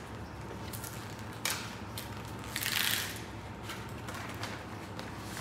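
Paper documents being handled on a desk: a sharp tap about a second and a half in, then a longer crinkle of paper a little before the middle, with a steady low hum underneath.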